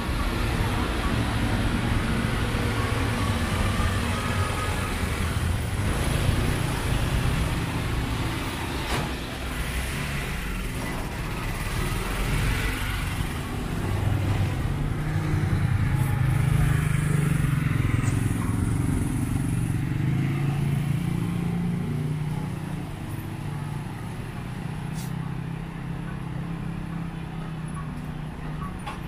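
Small engines of motor vehicles passing close along a narrow street, a three-wheeled auto-rickshaw (bajaj) and motorbikes among them. A low engine hum runs throughout and grows loudest a little past the middle.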